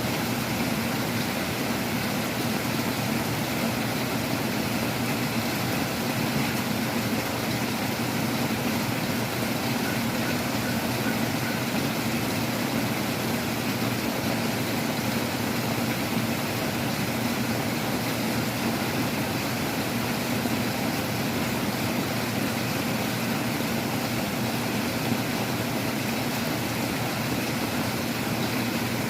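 Heavy rain and strong wind outside a window: a steady rushing noise with a low rumble, unchanging throughout.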